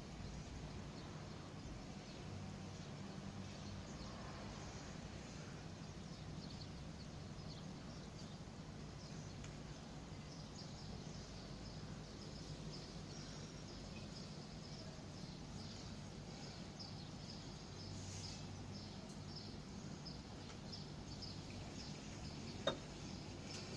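Faint, steady background noise with a low hum and light high chirping through the second half. One sharp tap near the end, as a finger touches the recording phone.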